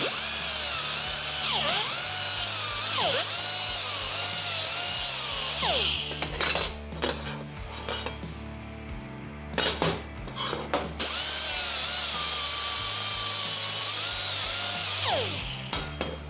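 Pneumatic right-angle die grinder with a small sanding disc whining in two runs of about five seconds each, its pitch wavering as it takes burrs and laser slag off cut steel parts. Between the runs, steel parts click and clink as they are handled on the steel table.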